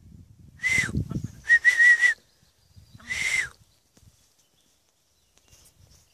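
Three short whistle calls to recall the dogs, the middle one longer and warbling, each with a breathy hiss.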